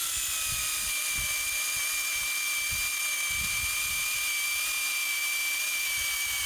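Cordless battery chainsaw's electric motor running steadily at full speed with no load, a high, even whine.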